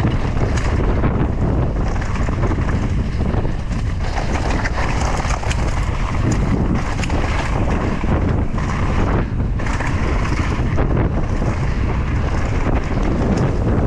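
Wind rushing over the camera microphone, mixed with tyre and trail noise from a mountain bike riding a dirt trail. The rush is steady, with scattered sharp clicks and rattles.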